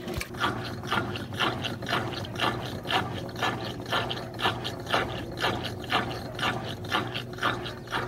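Brastemp Clean BWC11 top-load washing machine agitating during the second rinse: a steady motor hum under a regular clicking about twice a second. The machine is running normally.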